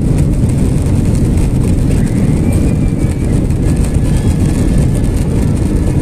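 Cabin noise of a jet airliner rolling along the runway after landing: a loud, steady rumble of the engines and the ground roll.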